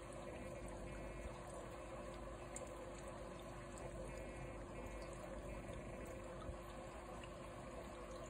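Aquarium filter running: a steady trickle and churn of water with a faint, even hum beneath it.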